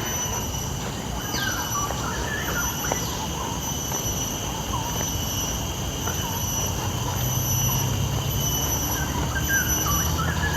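Outdoor ambience: a low rumble that grows a little in the second half, a steady high whine, and a few short bird chirps.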